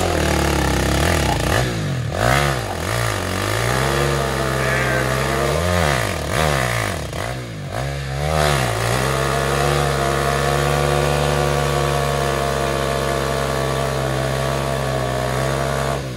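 KTM 450 ATV's single-cylinder four-stroke engine revving hard in a burnout, rear tires spinning on plywood. The revs rise and fall several times, then hold steady and high for about seven seconds before backing off at the very end.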